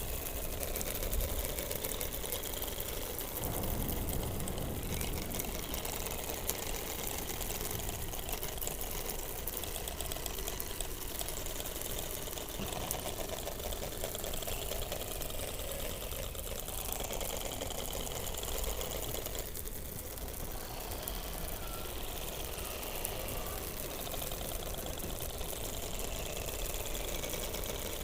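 Underwater sound beneath the Antarctic ice, picked up by a hydrophone: a steady, dense crackle of rapid fine ticks, with faint overlapping whistles and sliding tones in the upper range.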